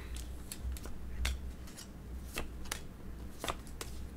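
Pokémon trading cards being flipped through one at a time, each card slid off the stack with a light snap of card stock: irregular short clicks and rustles, about a dozen over a few seconds, over a steady low hum.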